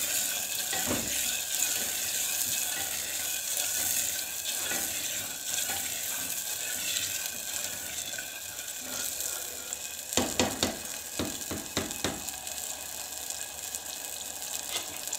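Potatoes sizzling in oil and tomato masala in a clay pot as they are stirred with a spatula; a quick run of knocks and scrapes against the pot about ten seconds in.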